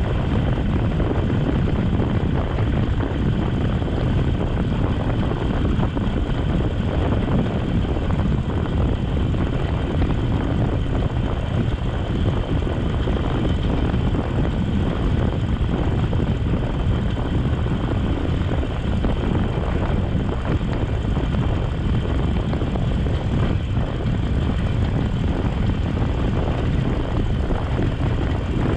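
Harley-Davidson Sportster Forty-Eight's air-cooled V-twin running steadily under way, mixed with wind and road noise, heard from a camera on the rider's chest.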